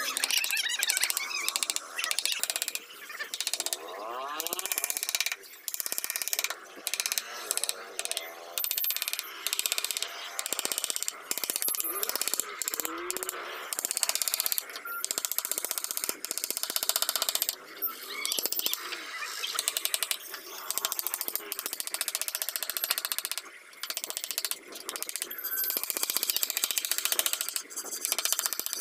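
Hand carving chisel scraping and cutting into a wooden panel in quick, repeated strokes with short pauses between them.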